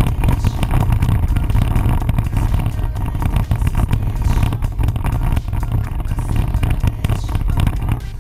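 Jeep Wrangler driving over a rough dirt trail: a continuous low rumble of engine and tyres, with constant irregular rattling and jolting.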